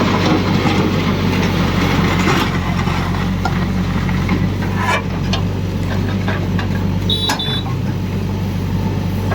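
Heavy machine's diesel engine running steadily with a low drone, with a few light knocks and two short high beeps about seven seconds in.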